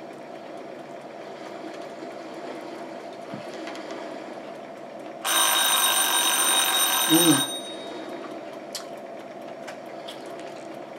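A loud electronic ring or buzzer sounds once, about five seconds in. It lasts about two seconds, with high steady tones over a buzzy hiss, and starts and stops abruptly. A steady low hum runs underneath throughout.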